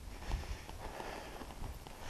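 Wind buffeting the microphone with an uneven low rumble, and faint scuffing footsteps on stony ground.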